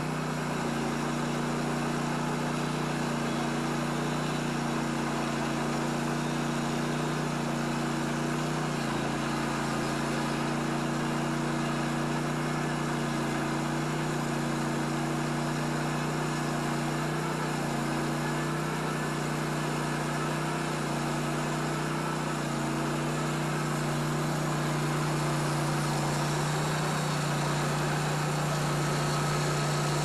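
Engine of a Vallee Sawmills Green Monster Wide bandsaw mill running steadily under load while its band blade cuts through a wide maple log. A constant low hum sits over an even hiss from the blade.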